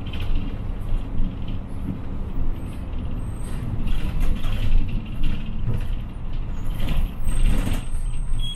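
City bus on the move: steady engine drone and road noise, with a burst of air-brake hiss about seven seconds in.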